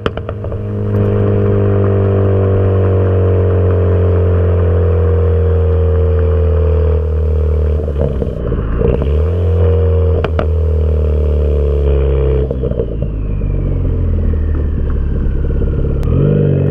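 Straight-piped 2014 Ford Focus ST's turbocharged 2.0-litre four-cylinder, its exhaust note falling slowly as the revs drop. A few sharp exhaust pops come about eight to ten seconds in: the overrun pops of its stratified tune. Near the end the revs climb again.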